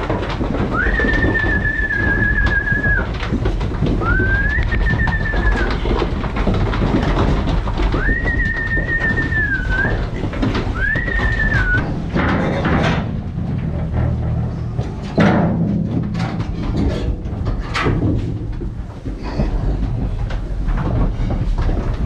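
Feeder pigs in a livestock trailer: five drawn-out, high squeals in the first twelve seconds, each rising, holding and falling. After that comes a run of irregular clattering and knocking of hooves on the trailer floor over a low steady rumble.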